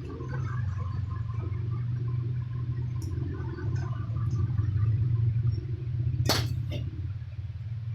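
Light handling clicks and ticks from tying down an AP table fan coil's lead wires, with one sharp click about six seconds in, over a steady low hum.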